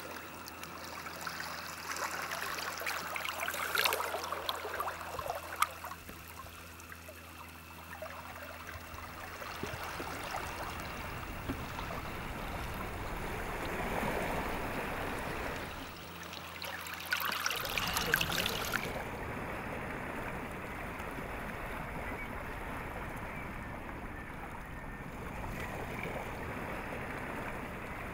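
Shallow seawater trickling and lapping over stones and rocks at the shoreline, swelling louder a couple of times.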